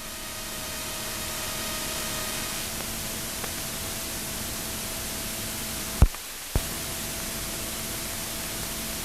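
Steady hiss, like static, with a faint steady hum under it. It is broken about two-thirds of the way in by two sharp clicks about half a second apart, and the hiss dips briefly between them.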